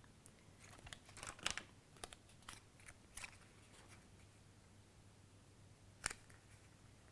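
Faint handling of cardstock: light rustles and small taps as a paper piece backed with a foam adhesive dot is placed and pressed onto the paper, with one sharper tap about six seconds in.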